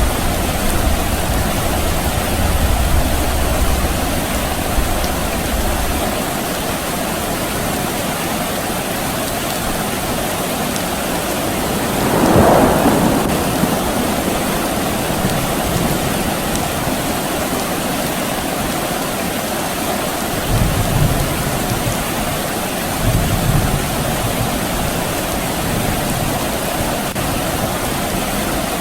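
Steady rain falling, with low rumbles of distant thunder during the first few seconds and twice more about two-thirds of the way through, and a brief louder swell a little before the middle.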